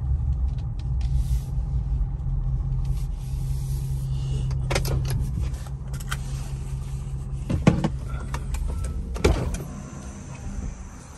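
Ford pickup truck's engine running, heard from inside the cab as a steady low drone. A few sharp clicks and knocks come in the second half, and the drone falls away about nine seconds in.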